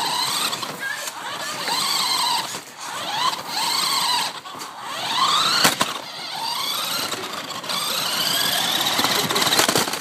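RC car's battery-powered electric motor whining in repeated throttle bursts, its pitch rising and then falling each time, about once a second, with a sharp click about halfway through. The battery is almost dead, so the car isn't going fast.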